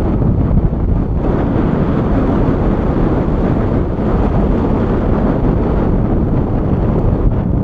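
Wind rushing over the microphone of a camera on a tandem paraglider in flight: a steady, loud, low rumbling hiss.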